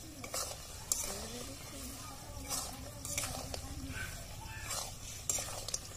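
Metal spatula scraping and stirring pieces of duck meat frying in spice paste in a metal wok, with sizzling under irregular scrapes about once a second.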